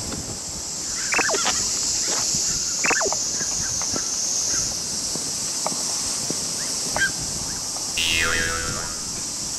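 Several short bird calls, scattered, with a noisier call falling in pitch near the end, over a steady high drone of insects.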